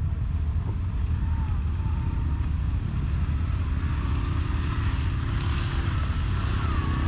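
Can-Am Outlander XMR 1000 ATV's V-twin engine running steadily at low revs, an even rumble with no revving.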